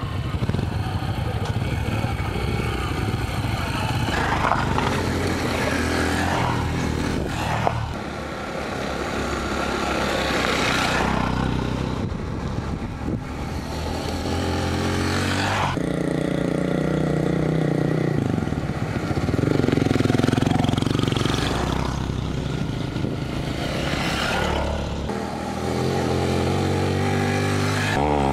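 Trail motorcycles riding past on a dirt track one after another. Their engines rise and fall as each bike approaches, revs and goes by.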